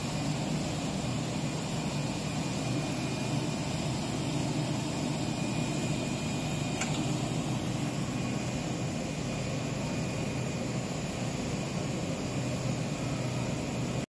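Rubber hose extrusion and vulcanization line machinery running: a steady low hum and whir with a faint high whine. A single brief click about seven seconds in.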